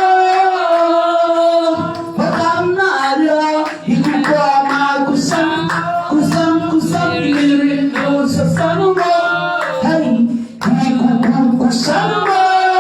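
One voice singing a slow, unaccompanied worship chant in long held notes, with short pauses between phrases.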